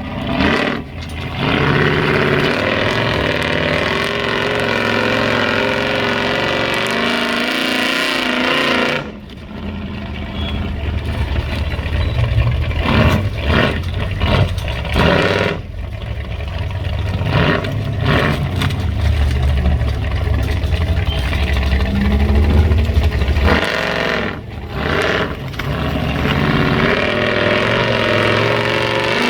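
Built off-road vehicle's engine revving and labouring at low speed while rock crawling, its pitch rising and falling with the throttle. The sound cuts off abruptly a few times.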